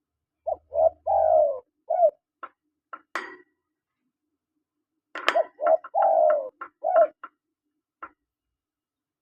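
Spotted dove cooing: two phrases about five seconds apart, each a few short coos and one longer falling note. Short, sharp, high notes come after the first phrase and once near the end.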